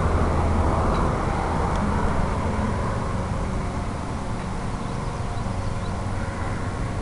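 Steady background rumble with a low hum underneath, easing off slightly after a few seconds.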